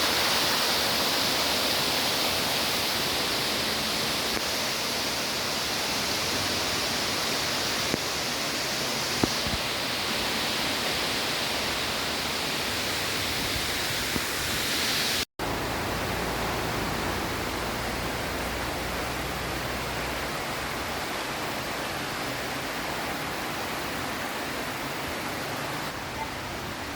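Waterfall water rushing and splashing as a steady, even roar of noise. It cuts out for an instant about halfway through, then resumes slightly duller.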